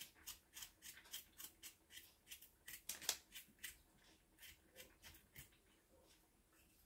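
Kitchen knife scraping the skin off a potato, a quick run of short, soft rasping strokes about three a second. The strokes pause briefly and stop a little more than halfway through.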